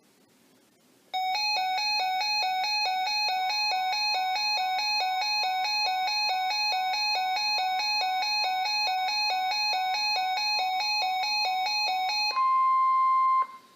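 Weather radio flood-warning alert: rapid repeating electronic beeps, about four a second, starting about a second in and running for some eleven seconds, then cutting to about a second of the single steady NOAA Weather Radio warning alarm tone.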